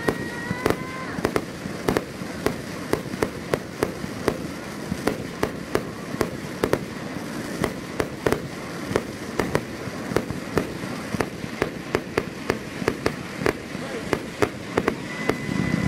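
Aerial fireworks shots bursting in steady succession, about two or three bangs a second. A brief steady whistle comes near the start and again near the end.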